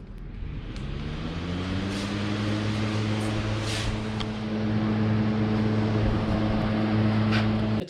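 Symphony Sumo air cooler's fan running at low speed, with a motor hum and a rush of air. The hum rises in pitch over the first couple of seconds as the motor spins up, then holds steady, and cuts off suddenly near the end.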